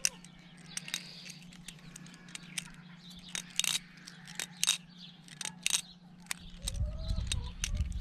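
Balisong (butterfly knife) being flipped: the handles and blade click and clack against each other in quick, irregular taps. A low rumble comes in near the end.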